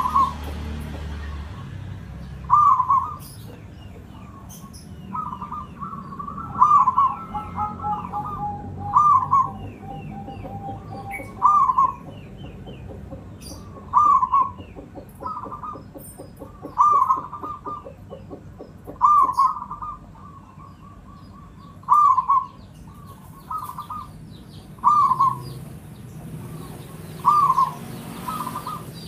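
Local Javanese zebra dove (perkutut) singing its cooing song. Short rolling phrases repeat about every two seconds.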